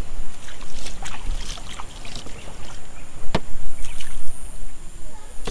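Shallow river water sloshing and running around a plastic toy dump truck, with a low rumble, scattered light knocks and one sharp click about three and a half seconds in.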